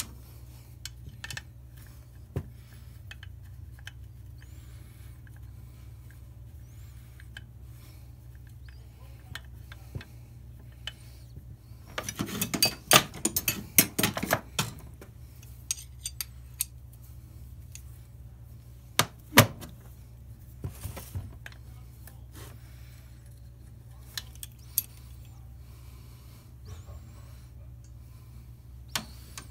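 Metal tools and gearbox parts being handled on a workbench: scattered clinks and clicks, a dense run of clattering about twelve seconds in and a sharp click about seven seconds later, over a steady low hum.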